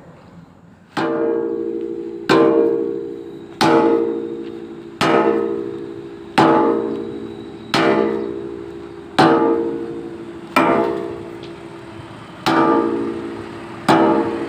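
Background music: a guitar-like plucked-string instrument strumming a chord about every one and a half seconds, each ringing out and dying away, starting about a second in.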